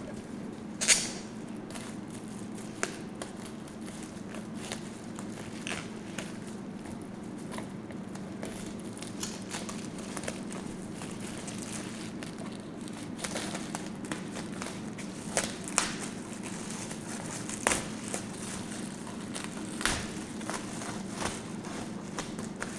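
Packaging of an unboxing being handled: scattered clicks, crinkles and rustles of box and wrapping, some sharp ticks, over a steady low hum.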